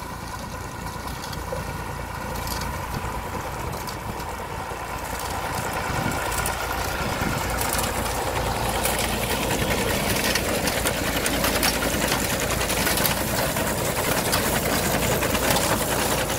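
Fordson Dexter tractor's three-cylinder diesel engine running at a steady working speed while pulling a McCormick reaper-binder, mixed with the fast clatter of the binder's cutter knife, canvases and knotter. It grows louder through the first half as the outfit comes close and passes.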